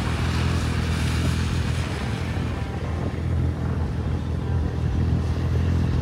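Vehicle engine and road noise making a steady low drone while driving on a snowy road.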